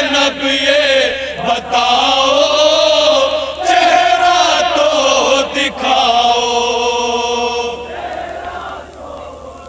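A group of male reciters chants an Urdu noha, a Shia mourning lament, in unison. The singing falls away and gets quieter near the end.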